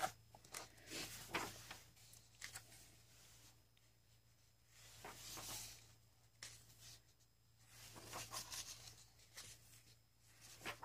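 Faint rustling and swishing of a paperback coloring book's paper pages being turned by hand, several separate page turns with a longer swish about halfway through. A faint steady low hum runs underneath.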